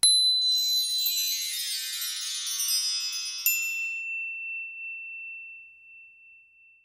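Logo sting sound effect: a shimmering cascade of bright chimes that starts suddenly, a sharp high ping about three and a half seconds in, then a single high tone that rings on and fades away.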